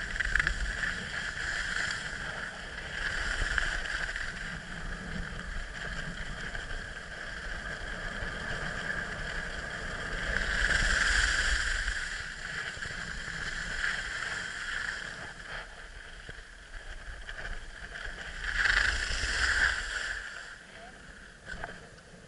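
Skis scraping over packed snow with wind rushing over the helmet-mounted microphone; the scraping hiss swells several times and dies down near the end.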